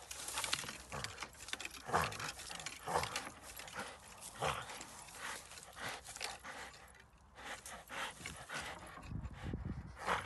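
American Staffordshire Terrier biting and gnawing a sapling trunk: a steady run of irregular crunching and cracking of wood and bark under its teeth, with low growls now and then.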